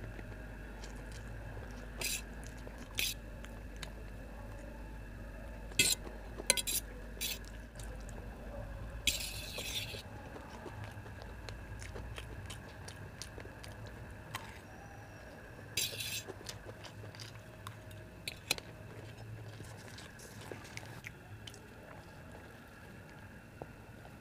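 A metal fork clinking and scraping against a stainless steel plate as noodles are gathered up, in scattered sharp clinks with one longer scrape, with soft chewing in between. A faint steady hum runs underneath.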